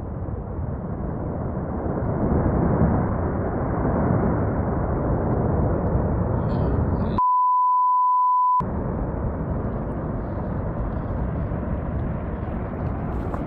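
Steady rushing noise, cut out about seven seconds in by a single flat censor bleep lasting about a second and a half, after which the rushing resumes.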